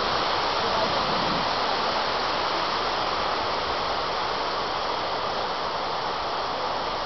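Power-plant cooling tower: a steady rushing of water falling through the tower into its basin.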